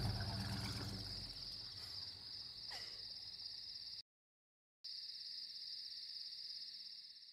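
A car's engine pulling away and fading over the first second or two, over a steady chirring of crickets. The sound cuts to dead silence for under a second about four seconds in, then the crickets resume and fade out near the end.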